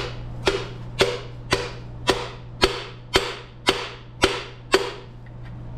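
Hammer blows at an even pace, about two a second, ten strikes each ringing briefly, stopping near the end: knocking at stuck, wedged parts during an engine teardown.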